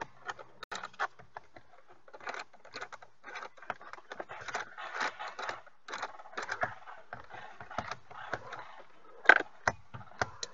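Irregular clicks, taps and scraping of hands and a tool working at the back of a steering wheel hub, with one louder click near the end.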